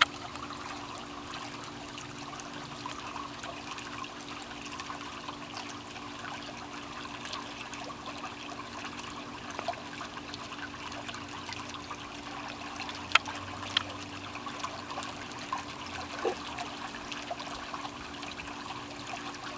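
Swimming pool water trickling steadily over a low steady hum, with a couple of sharp clicks about two-thirds of the way through.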